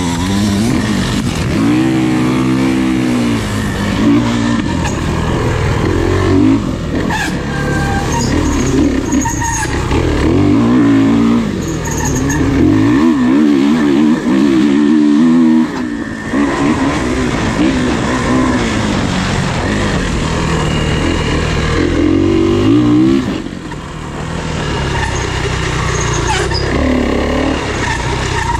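Off-road racing engines revving hard and easing off again and again, their pitch rising and falling over and over, with a brief dip in loudness about three quarters of the way through.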